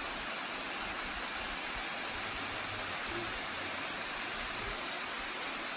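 Steady rush of a waterfall, an even hiss of falling water with no change.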